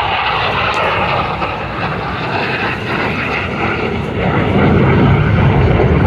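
F-16 fighter jet's single engine flying overhead, a broad rushing noise that grows louder and deeper about four seconds in as the jet comes closer.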